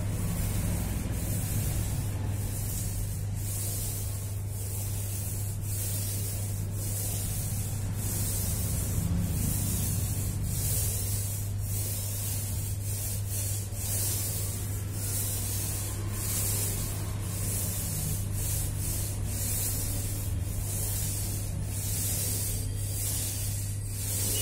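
Hand sanding: sandpaper rasping on a surface in repeated strokes, about one or two a second, over a steady low hum.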